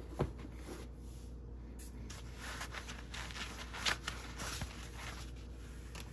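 Light handling noises: a small knock as the sneakers are set down on their cardboard shoebox. A few seconds in come rustling and a few small knocks from hands moving about.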